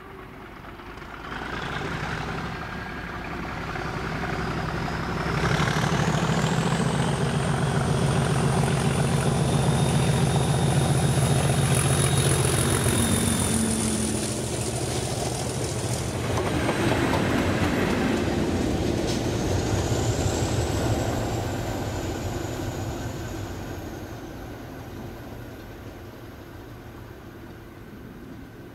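Diesel locomotives hauling a train of tank wagons pass close by: a deep engine note with a high turbocharger whistle swells as the first locomotive goes by, with the wagons rumbling over the rails. A second engine with its own whistle passes a few seconds later, and the sound fades away near the end.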